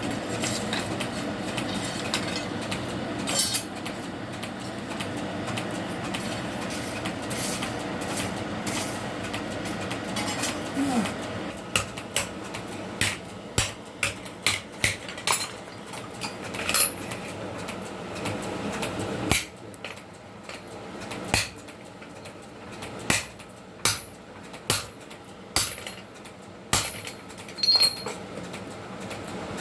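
Hammer blows on steel being forged by hand: sharp metallic strikes, irregular and roughly one a second, starting about twelve seconds in. Before and under them runs a steady machine noise, which stops about two-thirds of the way through.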